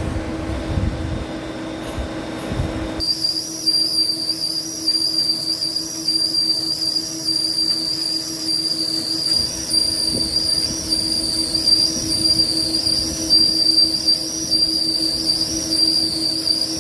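Vertical turning lathe taking a finishing cut on a large forged steel ring: about three seconds in, the cutting tool sets up a high, slightly wavering squeal over the machine's low steady hum.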